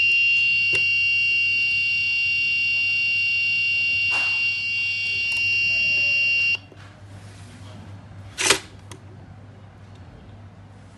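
Arduino project's piezo buzzer sounding a continuous high-pitched alarm tone, set off by the flame sensor detecting fire. It cuts off suddenly about six and a half seconds in. A sharp knock follows about two seconds later.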